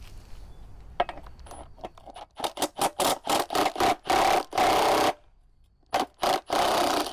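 Cordless Milwaukee M18 3/8-inch impact wrench hammering on the bolts of a steel battery tray to loosen them. It is triggered in a string of short bursts that run together into a longer one, stops for a moment, then fires two short bursts and a longer run near the end. A few light clicks of the socket being fitted to the bolt come first.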